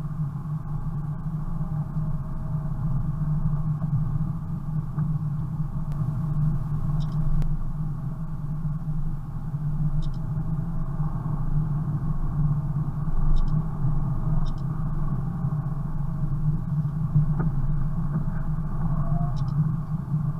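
Steady car engine and road drone heard from inside the cabin of a car driving on a snowy road, with a few faint ticks.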